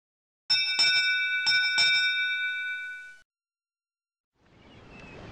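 A bell struck four times in two quick pairs, its ringing cut off about three seconds in. Near the end, a rushing noise like surf fades in.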